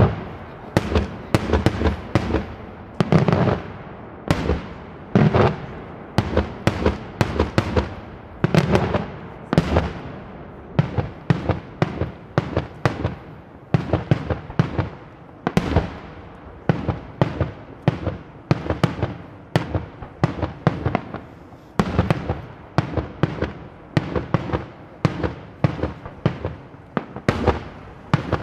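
Daytime fireworks display: aerial shells bursting in a rapid, unbroken string of sharp bangs, several a second, each trailing off in a short echo.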